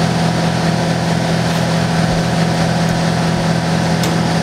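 Shop air compressor running steadily, a constant droning hum, keeping up the air supply for a pneumatic riveter.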